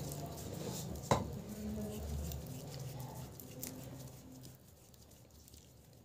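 Light irregular pats of chapati dough being slapped flat between the hands, with small crackles from an open wood fire and one sharper snap about a second in.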